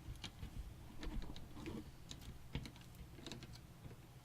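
Light, irregular clicks and taps of computer parts being handled and fitted inside a PC case.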